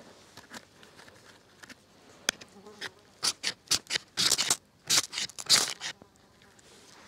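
A knife spine scraped hard down a ferrocerium rod to throw sparks onto birch-bark tinder: a few faint ticks, then from about three seconds in a quick run of about eight sharp, hissing scrapes that stop about six seconds in.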